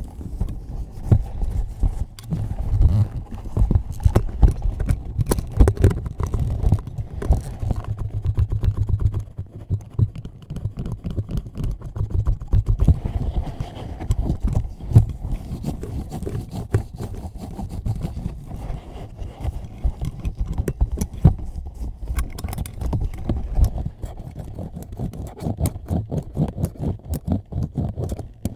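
Close-up rubbing and scratching on a microphone, handled directly at the grille: a dense, uneven run of scratches and taps over a heavy low rumble of handling noise.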